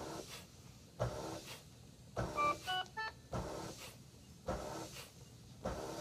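HT70 Plus transport ventilator cycling fast into an artificial lung, each breath a short mechanical sound with a sharp start, about one a second; the rate is high because PEEP is set at 10, and the test lung has an air leak. A short run of electronic beeps at several pitches comes about two and a half seconds in.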